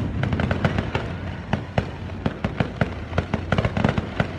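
Fireworks display: aerial shells bursting in a rapid, irregular run of sharp bangs and crackles over a low rumble, loudest right at the start.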